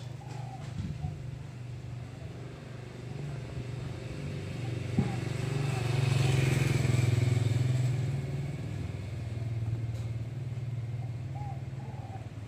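A motor vehicle's engine running steadily, growing louder to its loudest about six to eight seconds in as it passes, then easing off.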